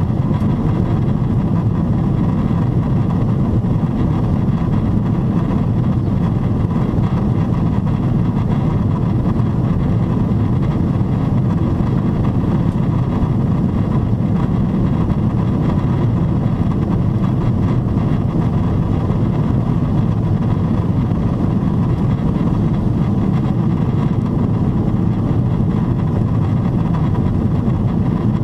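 Steady low cabin roar of a Boeing 777-300ER in level cruise at about 29,000 ft: air rushing past the fuselage with the hum of its GE90-115B engines, with a faint steady tone above it.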